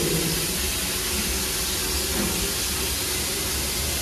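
Steady hiss of steam from a 1908 Baldwin 4-4-0 narrow-gauge steam locomotive.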